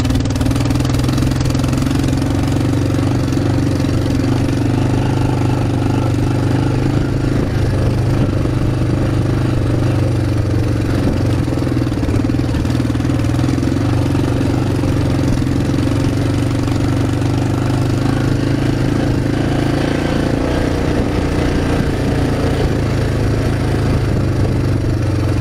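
ATV (quad) engine running at an even, steady speed while the machine is ridden along.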